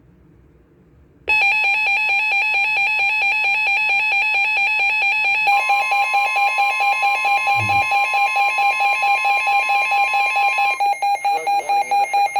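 A weather alert radio sounds its alarm for an incoming flood warning. About a second in, a loud, steady, buzzy alarm tone starts. A second, purer tone joins partway through and stops near the end, where the alarm turns to rapid beeping and the broadcast voice begins faintly beneath it.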